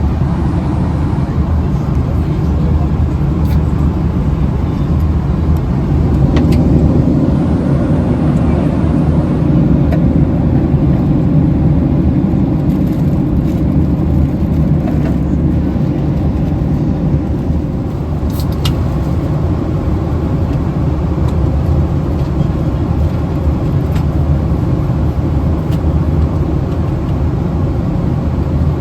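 Steady low rumble of a vehicle in motion heard from inside, with a few faint clicks.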